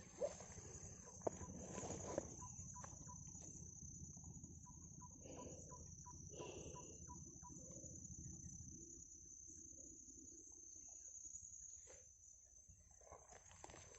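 Faint, steady high-pitched insect chorus, with scattered light rustles and clicks from movement through grass.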